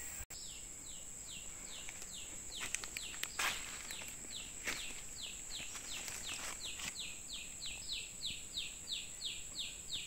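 A young forest quail (puyuh hutan) calling: a long run of short, falling high chirps, about three a second, over a steady high-pitched whine.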